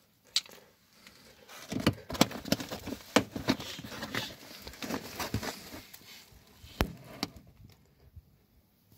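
Plastic wheel-arch liner being pushed and pulled back by hand: a sharp click near the start, then a few seconds of irregular clicks and scraping of plastic, and two last clicks near the end.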